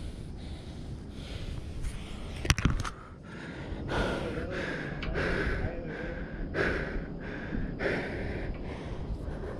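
A climber breathing hard and gasping from exertion, one heavy breath about every second from about four seconds in. A single sharp knock comes about two and a half seconds in.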